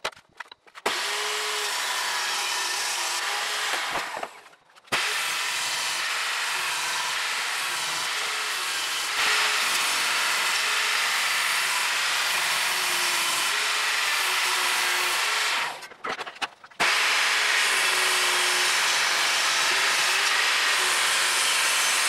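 Benchtop table saw running and ripping wooden boards into strips, its motor note wavering as the wood is fed through. The noise drops out briefly twice, at about four seconds and near sixteen seconds.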